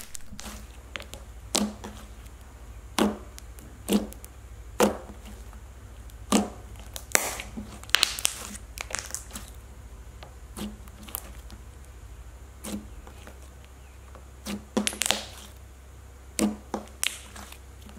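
Thick, glossy slime being folded and squeezed between the thumbs, popping trapped air bubbles: a string of sharp pops, about one a second, some in quick pairs, with softer sticky clicks between.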